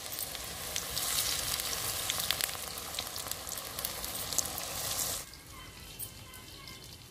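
Batter-coated cauliflower pakoras deep-frying in hot oil in an iron kadhai, a dense sizzle with sharp crackles throughout. About five seconds in the sizzle cuts off suddenly, leaving a much quieter background.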